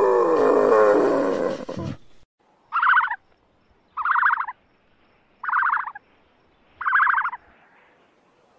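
Animal calls: a loud drawn-out call falling in pitch for about two seconds, then four short, higher calls evenly spaced about a second and a half apart.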